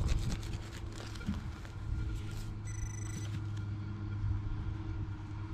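Minelab Equinox 800 metal detector giving one short high-pitched beep about three seconds in, the signal of a metal target in the ground, over a steady low rumble and a scatter of clicks in the first second or so.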